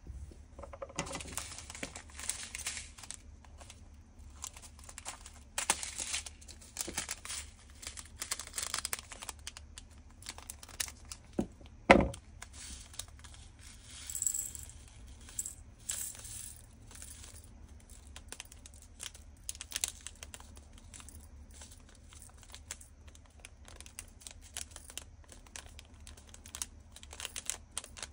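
Small plastic zip bags of diamond-painting resin drills crinkling as they are opened and handled, with irregular small clicks and taps of little plastic bottles. One sharp knock stands out about twelve seconds in.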